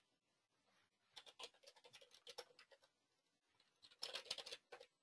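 Faint typing on a computer keyboard in two runs of keystrokes, the first starting about a second in and a shorter one near the end.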